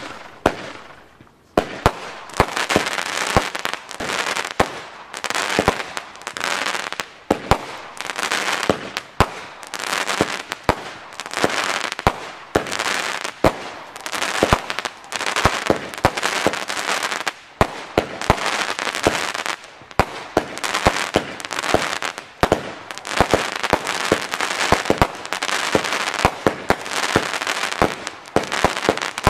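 Weco 7765 Magisterial fireworks battery (cake) firing a long run of shots. There is a sharp bang every second or so, with a dense hiss of bursting stars between them.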